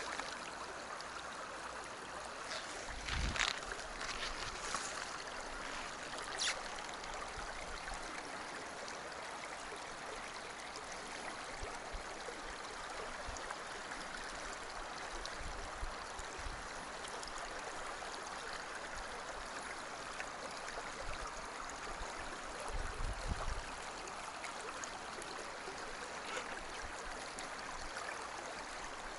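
Shallow stream running over stones and cobbles, a steady rush and babble of water. A few brief low bumps stand out, the strongest about three seconds in and again near twenty-three seconds.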